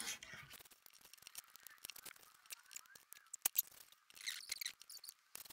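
Small plastic clicks and light rattling of LEGO bricks and plates being handled and pressed together, with one sharper click about three and a half seconds in and a short rustle of pieces near the end.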